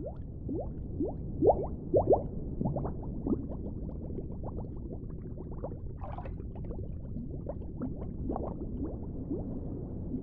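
Underwater ambience: a low steady rumble with many small bubbles rising and popping, each a short upward-gliding blip, thickest and loudest in the first few seconds. A brief fizz of bubbles comes about six seconds in.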